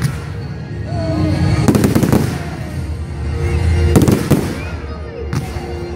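Aerial firework shells bursting overhead: clusters of sharp bangs about two seconds in and again about four seconds in.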